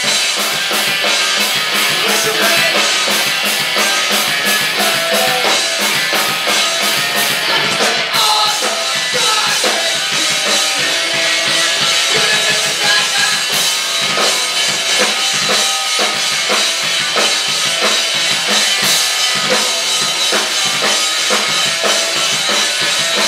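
Rock band playing live and loud: distorted electric guitar, electric bass and a drum kit with steady bass drum, snare and cymbal hits.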